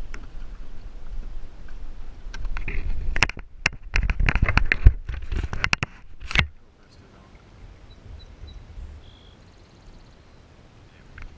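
Handling noise from a GoPro camera being picked up and repositioned: a dense run of knocks, scrapes and crackles lasting about four seconds, starting a couple of seconds in, over a low rumble.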